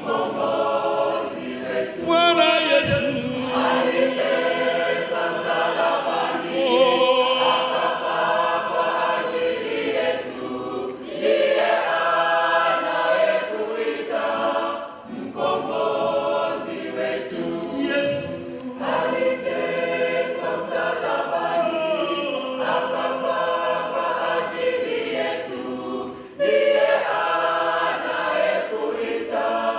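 Mixed men's and women's church choir singing a gospel song, with a male lead singing into a microphone. The singing comes in phrases, with short breaks about halfway through and again near the end.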